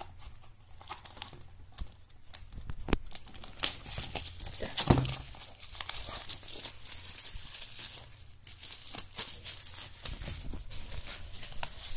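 Clear plastic shrink wrap crinkling and tearing as it is peeled off a Blu-ray case, in irregular crackles that get louder about four seconds in.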